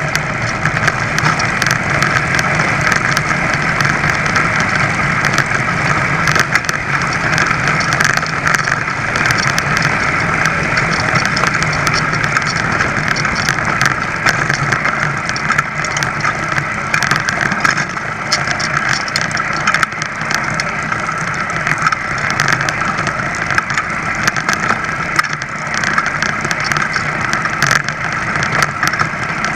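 The small front-mounted clip-on engine of an ABG (Velo) VAP moped running steadily while the moped is ridden along.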